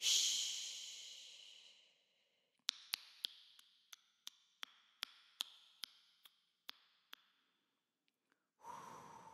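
A woman's wordless vocal sounds close to a studio microphone: a loud breathy hiss that fades over about two seconds, then about a dozen sharp clicks, two or three a second, and near the end a breathy exhale carrying a steady hummed tone.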